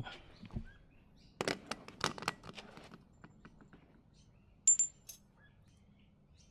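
Scattered light metallic clicks and clinks from hand tools and parts being handled during car repair work, with one sharp, briefly ringing clink about four and a half seconds in.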